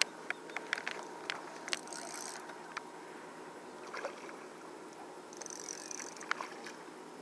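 Scattered small clicks and knocks of tackle being handled on a small boat, over a steady low wash of water, with two brief high hisses about two seconds in and near six seconds.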